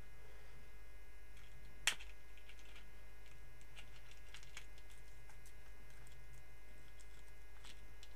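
Scattered small clicks and rustles of a taped cardboard package being worked open by hand, with one sharp click about two seconds in, over a steady low hum.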